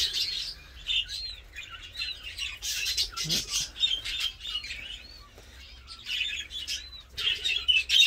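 A mixed flock of budgies and zebra finches chirping and chattering without a break, with short high calls repeating every second or so.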